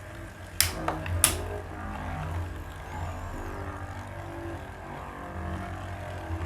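Two spinning battle tops launched into a plastic stadium: sharp clacks about half a second and again about a second and a quarter in as they land and strike each other, then the tops spinning against each other with a steady whir.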